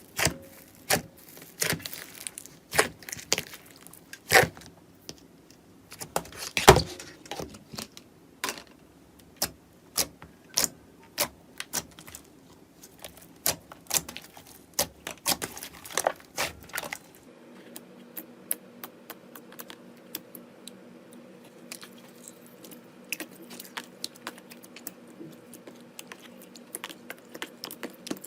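Slime being handled by hand, with irregular sharp clicks, pops and crackles. About 17 s in the sound changes to finer, denser crackling over a faint steady hum.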